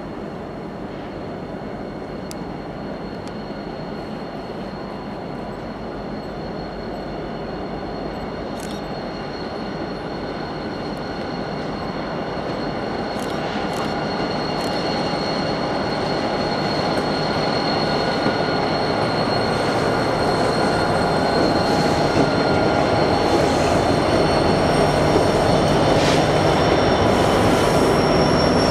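Freight train led by EMD two-stroke diesel locomotives approaching and growing steadily louder, the engines rumbling, with a steady high-pitched wheel squeal over it.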